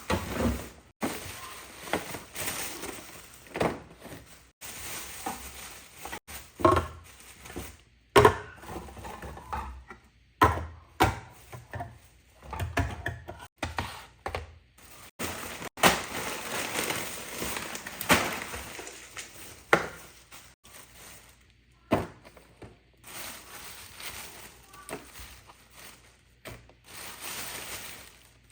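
Irregular knocks, thuds and light clatter, as of objects being handled and set down, some sharp and ringing briefly, broken now and then by abrupt silent gaps.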